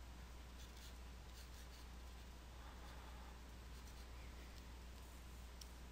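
Faint scratching of a stylus drawing strokes on a graphics tablet, over a steady low electrical hum.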